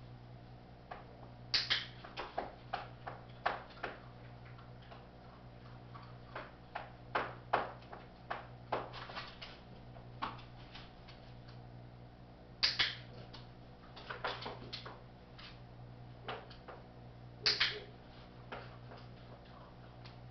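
Dog-training clicker clicked three times, each a sharp double click, marking the moment the dog stays calm in front of the offered treat. Fainter ticks and taps come between them.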